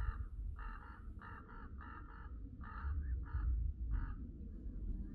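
A bird calling in a quick series of short calls, often in pairs, about a dozen in four seconds, then stopping, over a low steady rumble.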